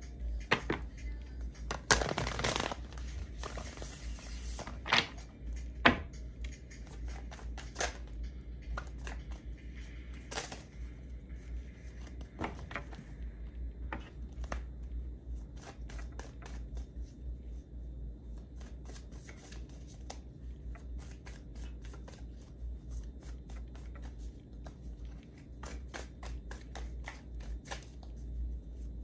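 A deck of tarot cards being shuffled by hand: a longer burst of card flutter about two seconds in, a couple of sharp card snaps soon after, then a run of soft, irregular card taps and slides as the deck is worked.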